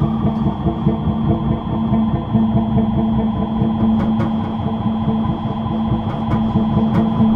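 Soundtrack music: a loud, steady buzzing drone with a fast pulse, carried straight on into guitar music.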